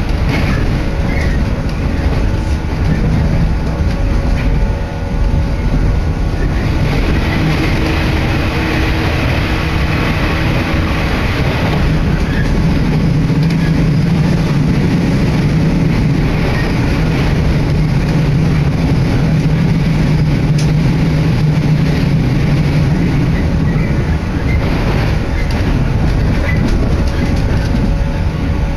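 Running noise heard inside the carriage of an electric passenger train under way: a steady rumble of wheels on the rails, with a low hum that grows louder for about ten seconds midway.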